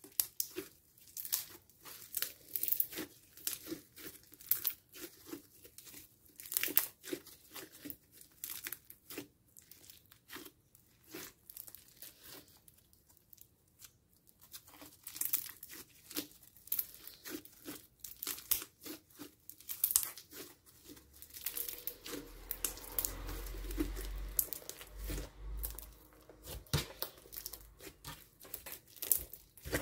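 Bubbly slime made of glue, foam and liquid foam soap, squeezed and pulled apart by hand, its trapped air bubbles popping and crackling in quick irregular clicks. The crackling pauses for a moment about halfway, and a duller, lower rubbing sound joins it for a few seconds past the two-thirds mark.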